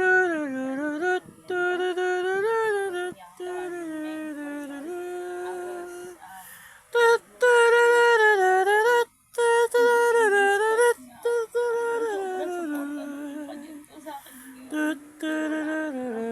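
A lone voice humming a slow tune without words, holding notes and dipping between them, with short breaths between phrases and no accompaniment.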